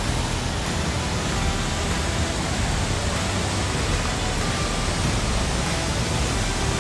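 Waterfall rushing, a steady, loud roar of falling water that stops abruptly near the end.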